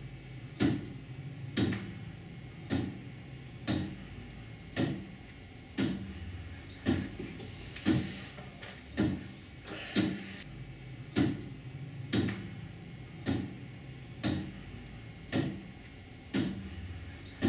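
Tower clock's pendulum movement ticking: a sharp, even tick of the escapement with a short ring about once a second.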